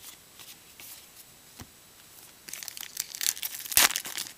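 A trading-card pack wrapper being torn open and crinkled. A few soft clicks come first, then dense crackling sets in about halfway through, loudest near the end.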